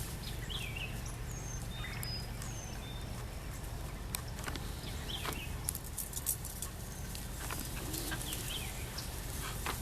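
Wild birds chirping and calling, short whistled notes and curving chirps scattered throughout, over a steady low background rumble and occasional sharp clicks.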